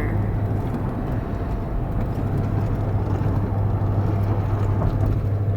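Road and engine noise inside a pickup truck's cab while driving: a steady low hum with an even rumble and no sudden events.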